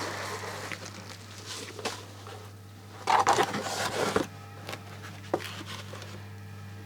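Small plastic bags of electronic components rustling and crinkling as they are handled, with scattered light clicks and a louder rustle about three seconds in, over a steady low hum.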